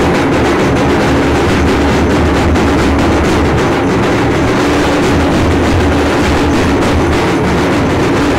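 Loud, continuous din of temple aarti percussion: a dense, unbroken clatter of ritual bells and drums sounding together.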